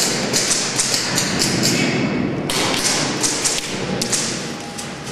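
Airsoft guns firing during close-quarters play: a dense, irregular clatter of sharp pops and taps.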